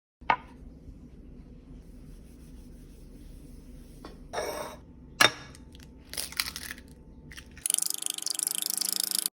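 A sharp knock and crunchy rustling of food being handled, a second knock, then, about seven and a half seconds in, a loud crackling sizzle of breaded steak frying in hot oil.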